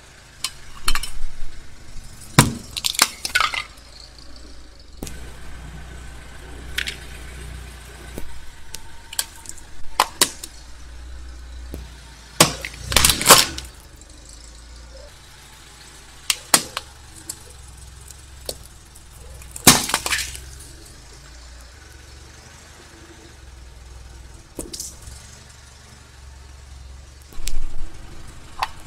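A car tyre crushing small objects on concrete, including a plastic toy and a plastic cup: a string of sharp cracks, snaps and clinks at irregular intervals, over the low steady running of the car's engine.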